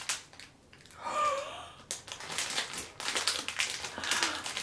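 Plastic food wrapper crinkling and rustling as a sandwich roll is unwrapped. A short hummed vocal sound comes about a second in.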